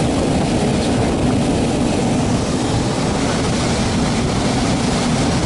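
Lennox KGA060 rooftop gas unit running in heat with its newly replaced blower motor on: a steady rush of air over a low, even hum. The motor is running normally, not sparking or burning.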